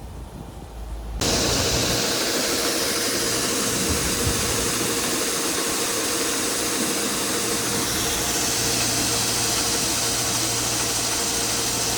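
Farm harvest machinery running: a steady, loud hiss over a low engine hum, starting suddenly about a second in.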